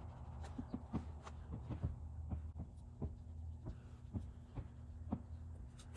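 Cloth wiping and rubbing along a car's window trim: irregular soft knocks and light ticks over a low steady hum.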